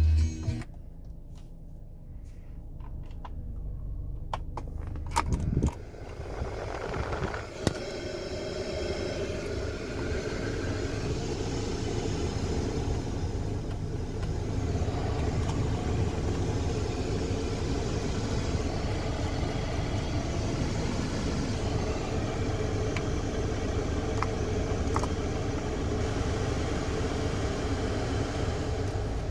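Car climate-control blower fan running, a steady rush of air that builds up in steps over the first half as the fan is turned up to speed 6, then holds steady. A few sharp button clicks come early on.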